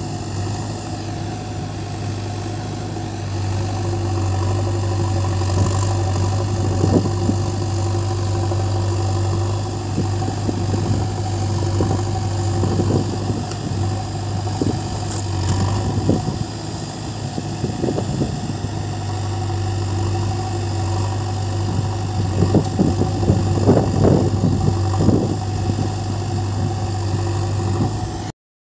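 Diesel engines of a JCB backhoe loader and a Swaraj 744 XT tractor running steadily, with scattered clattering knocks from the loader at work. The sound cuts off suddenly near the end.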